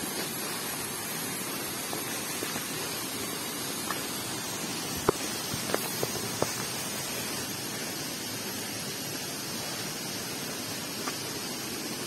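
Steady rush of a waterfall, with a few sharp clicks about five to six and a half seconds in, the first of them the loudest.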